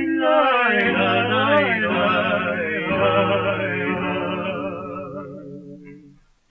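Male duet singing long held notes with wide vibrato over two acoustic guitars, from a 1931 78 rpm record of a zamba; the voices fade and stop shortly before the end.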